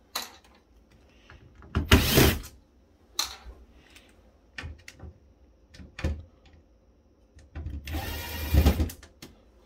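Cordless electric screwdriver spinning out screws from a circuit board, running in two short bursts: a brief one about two seconds in and a longer one of over a second near the end. Small clicks and taps come between the bursts.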